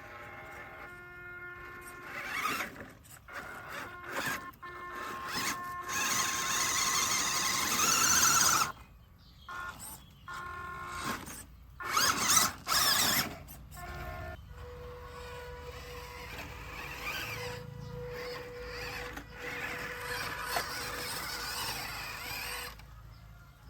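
Small electric RC crawler motor and drivetrain whining in stop-start bursts as the throttle is applied, over steady background music.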